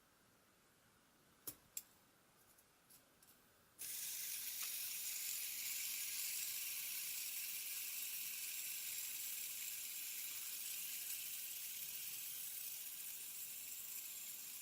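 A few light plastic clicks from handling, then, about four seconds in, a fidget spinner is set spinning: its bearing gives a steady, high-pitched whirring hiss that slowly fades.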